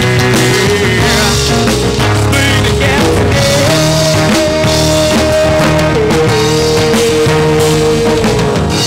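A rock band playing an instrumental passage: drum kit and guitars under a long-held lead melody note that steps up in pitch partway through, then drops back down.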